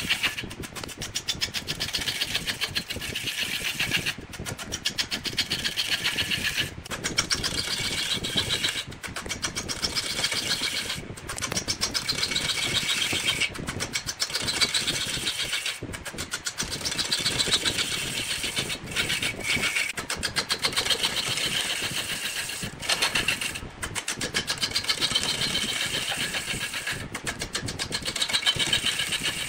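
Wood lathe running while a turning tool cuts a spinning wooden blank, in repeated passes a couple of seconds long, each with a rapid, even ticking.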